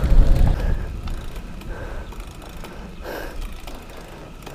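Bicycle drivetrain with faint ratchet-like clicking, over wind rumble on the microphone that fades about a second in.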